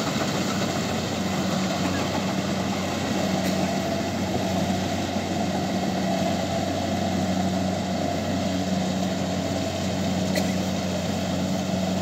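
Kubota rice combine harvester's engine running steadily while harvesting, a constant machine hum.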